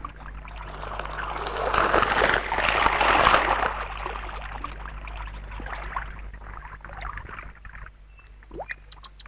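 Nile crocodiles sliding into a river: a rush of splashing and sloshing water, loudest about two to three seconds in, then dying away. A faint short rising call comes near the end.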